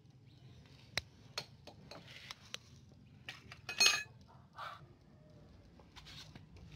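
Scattered light metallic clicks and taps at a motorcycle wheel hub while a new front wheel bearing is being seated, with one louder, ringing metal clink just under four seconds in.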